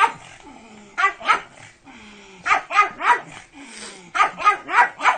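Pug barking: about ten short barks in quick clusters of two to four.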